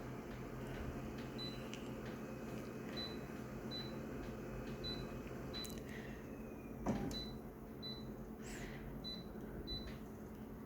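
Konica Minolta office copier running with a steady low hum and a light, high tick repeating every half second or so, the tapping noise the machine is making. A single sharper click comes about seven seconds in.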